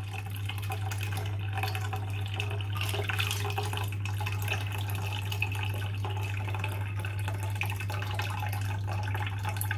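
Ice water poured in a steady stream from a measuring jug through a mesh sieve into a saucepan of hot tea, splashing continuously, over a steady low hum.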